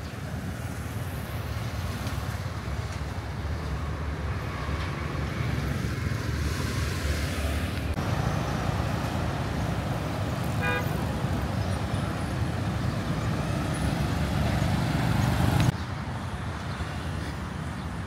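City street traffic: a steady rumble of passing vehicle engines and tyres, with a short horn toot a little past halfway. The sound changes abruptly twice, once about halfway and once near the end.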